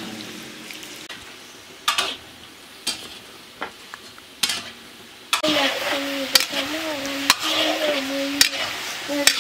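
Dough balls deep-frying in hot oil in an iron wok, the oil sizzling, with a few sharp clicks of a metal ladle stirring them against the pan. About halfway through the sizzling grows louder and a steady low tone runs under it.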